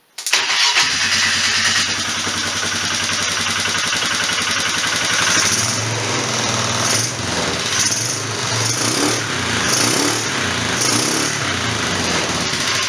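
Polaris 500 four-stroke single-cylinder ATV engine starting at once and then running steadily, fed by a slide carburetor fitted in place of its stock CV carb. The engine note swells several times in the second half.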